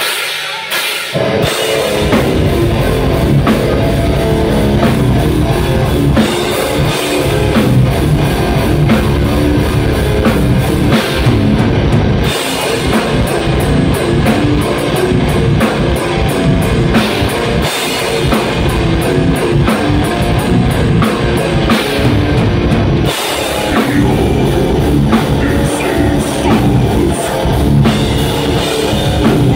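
Death metal band playing live: distorted electric guitars and a full drum kit, opening with a few separate drum hits before the whole band comes in about a second in.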